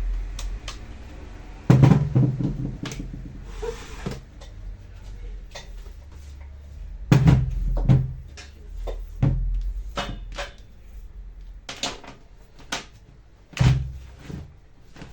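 Irregular knocks and clunks of hard objects being handled and set down on a workbench, the three loudest about two seconds in, seven seconds in and near the end, with lighter clicks between.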